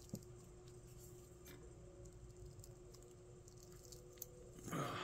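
Hands squeezing a hard, dried tea-stuffed orange peel to crack it, giving faint scattered crackles and ticks and a louder rustle near the end. The peel is too hard to break.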